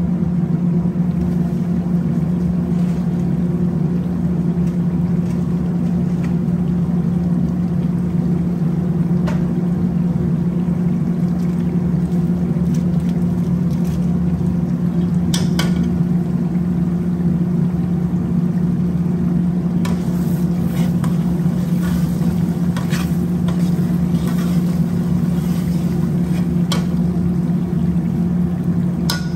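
A steady, loud low mechanical hum in a kitchen, with a few short clicks and taps of a metal ladle and spice packet at the pot.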